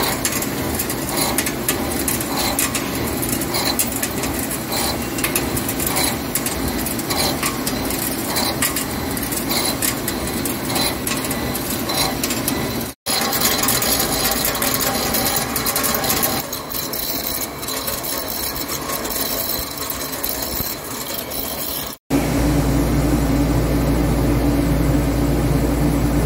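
Hankook CNC lathe turning an alloy cast steel coupling: continuous cutting noise with many small crackling ticks of chips breaking off the insert. It is broken by two abrupt edit cuts, and in the last few seconds the sound is a steadier machine hum with a low tone.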